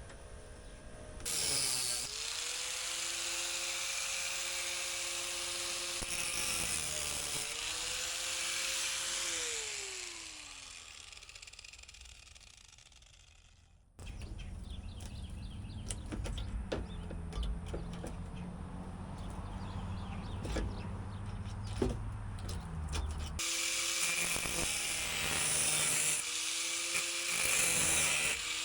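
Handheld electric power tool cutting sheet metal. It runs steadily with a high hiss, dips in pitch once, then winds down and fades. After a stretch of low rumble and scattered taps, it runs again near the end.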